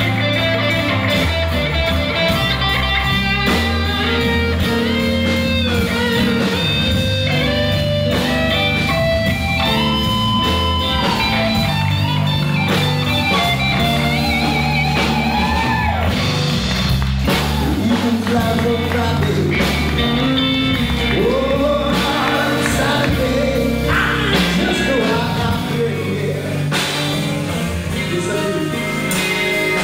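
Live rock band playing: electric guitars, bass guitar and drum kit, with a lead vocal singing over it.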